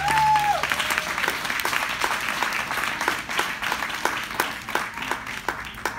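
Audience applauding, with a voice calling out in the first second; the clapping thins out to scattered individual claps toward the end.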